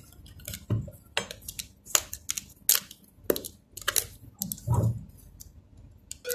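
Cardboard product box being handled and opened: irregular scrapes, taps and rustles of hands and a flat tool on the cardboard, with a few dull knocks of the box against the table.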